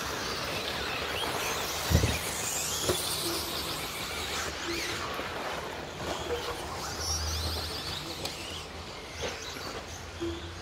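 Electric 1/10-scale 2wd RC stadium trucks racing, their motors whining up and down in pitch as they accelerate and slow through the corners. A thump about two seconds in, with a few lighter knocks later.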